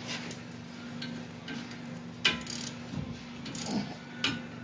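A few sharp metal clicks and taps of a hand tool against the brake caliper bracket, the loudest about two seconds in, over a steady low hum.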